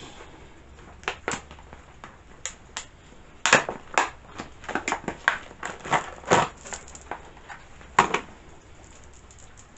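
Irregular clicks and rattles of a new chainsaw chain and its packaging being handled and pulled out of the box, busiest in the middle with one sharp click near the end.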